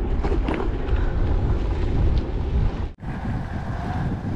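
Wind buffeting the microphone of a camera carried on a moving scooter: a steady low rumbling noise, cut off for an instant about three seconds in.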